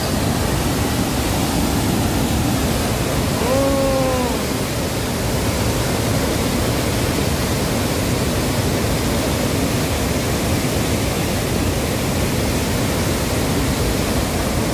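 Floodwater discharging through the open gates of a dam spillway, a steady rush of churning, very swift water. The river is in flood, the gates opened to pass the high flow.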